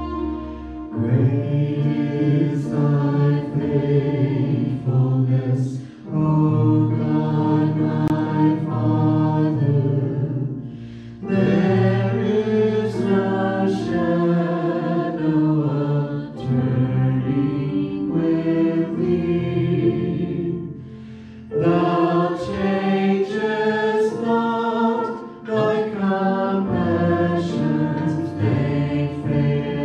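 A small mixed vocal group of five singing a worship song together through microphones, in sung phrases separated by brief breaths.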